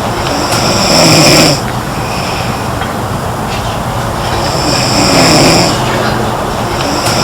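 A girl snoring: two long snores about three and a half seconds apart, each with a high whistling edge, over a steady background noise.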